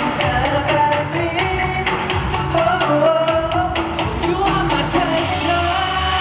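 Pop song playing loud, with a melody line over quick, evenly spaced percussion ticks; about five seconds in, a bright cymbal-like wash takes over from the ticks.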